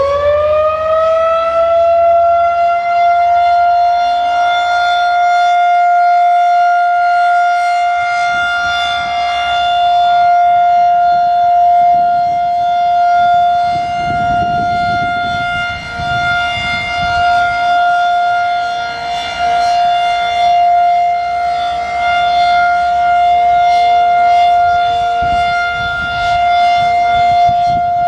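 Federal Signal 2001-SRNB outdoor warning siren on its steady alert signal. It finishes winding up in the first couple of seconds, then holds one loud, unchanging tone.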